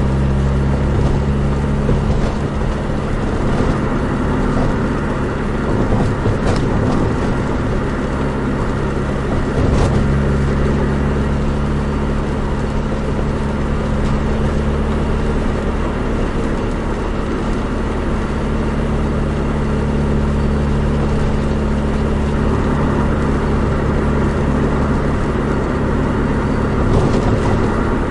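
Nissan Micra 1.3 being driven, its engine running steadily over road noise. The engine note shifts about halfway through, as with a change of gear or speed.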